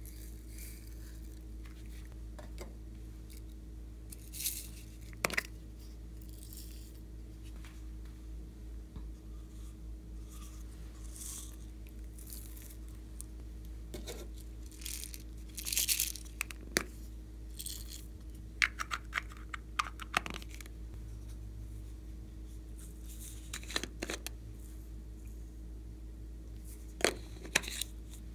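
Sequins and glitter being shaken and tipped out of small boxes and a cupcake cup onto slime: scattered light ticks and clicks and short rustling spells, over a steady low hum.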